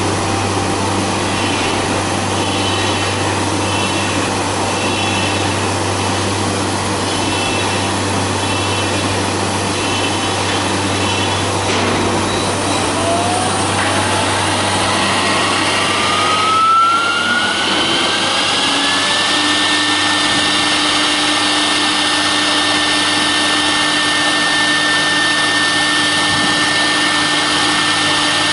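CNC router spindle motor spinning up: a whine rises smoothly in pitch for several seconds from about halfway through, then levels off and runs steadily at full speed. Under it, steady machine noise with a low hum.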